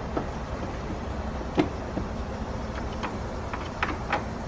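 A handful of short, sharp clicks and knocks, the loudest about a second and a half in, from gloved hands and a T25 Torx driver working at the screws of the air filter housing cover. Under them runs a steady low rumble.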